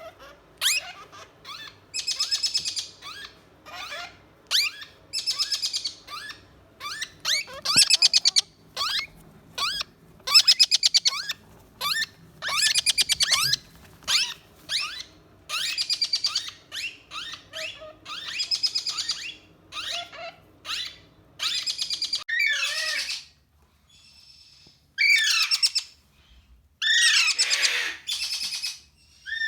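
Young parrots calling: harsh, buzzy squawks repeated about once a second, thinning out in the last several seconds into a few calls that swoop up and down in pitch.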